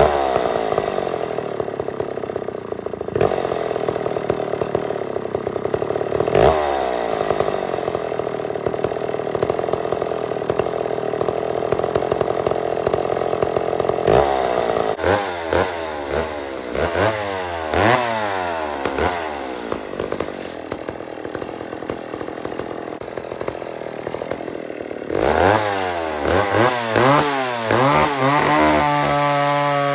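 McCulloch 550 two-stroke chainsaw cutting through fir at a steady, loaded pitch. About halfway through, and again near the end, it is revved up and down in quick repeated blips. It settles into a steady pitch at the very end.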